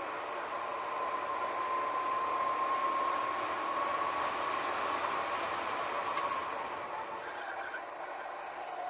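Go-kart engine running hard at speed, heard onboard with rushing air noise over the camera's microphone. The engine note holds steady, then eases lower about six seconds in as the kart lifts off for a corner.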